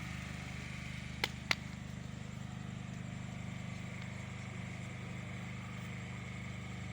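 An engine running steadily at idle. Two sharp clicks come close together about a second in.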